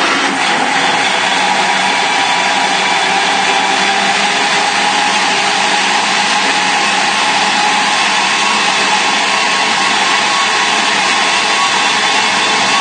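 Liquidiser blending cooked celery soup: the motor starts suddenly and runs at a steady speed with a loud whirring whine.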